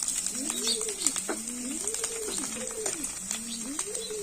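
Doves cooing over and over: arching calls that rise and then fall, about one a second and sometimes overlapping, with a few sharp clicks and a steady high hiss behind them.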